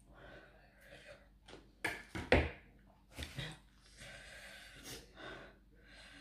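Close-up eating sounds of a person eating spicy cucumber salad: chewing with short sharp breaths, typical of reacting to chilli heat. The loudest burst comes about two seconds in.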